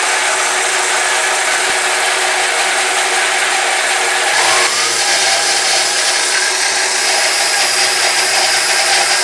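Bandsaw running with its blade cutting lengthwise through a thick half-round log with the bark on, a steady dense saw noise whose tone shifts slightly about four to five seconds in.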